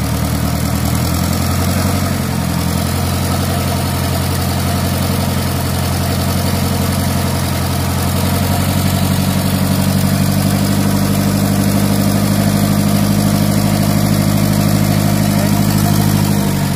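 Mitsubishi PS120 marine diesel engine running under raised throttle, driving its Fada gearbox in forward gear: a steady engine drone. The drone grows a little louder about halfway through, then the engine speed drops suddenly at the very end.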